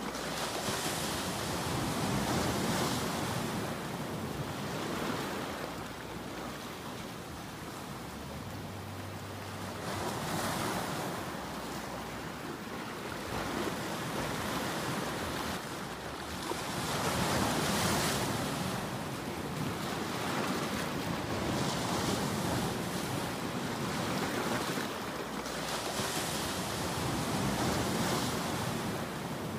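Ocean surf: waves breaking and washing in, the rush swelling and falling back every several seconds.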